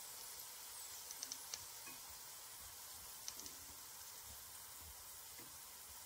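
Faint sizzling of hot grease in an air fryer basket around just-cooked meatballs, with a few small crackling pops in a cluster about a second in and again about three seconds in.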